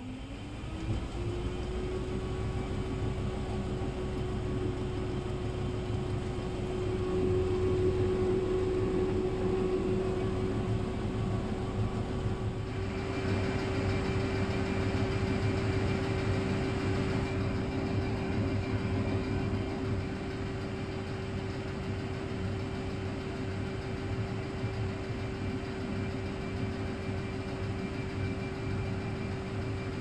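Candy 133 washing machine spinning: the motor's tone rises in pitch over the first second or two as the drum speeds up, then holds a steady spin-speed hum over an even rumble.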